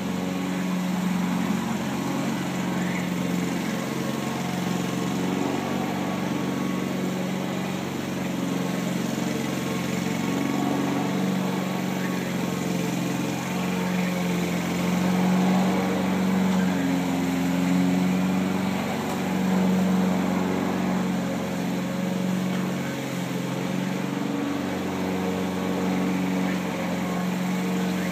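Honda walk-behind lawn mower's single-cylinder four-stroke engine running steadily under load as it is pushed across the grass cutting, its level swelling and easing a little as it moves.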